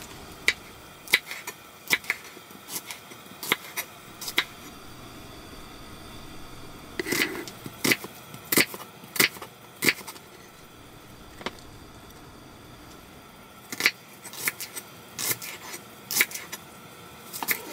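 Kitchen knife slicing a green onion on a small wooden cutting board: sharp, irregular knocks of the blade hitting the wood, in short runs with pauses between.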